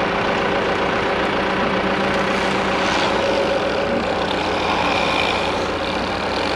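Diesel engine of a John Deere 120 tracked excavator running steadily, with a fast even low pulsing, as the machine drags a length of corrugated drain tile.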